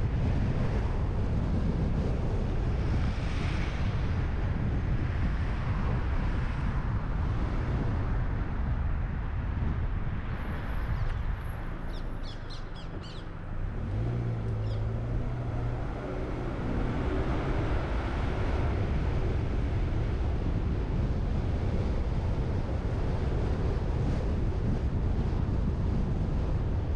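Wind rushing over the microphone and tyre and road noise from a car driving along a city street. About twelve seconds in the noise briefly drops and a short run of high chirps is heard, then a low steady engine hum.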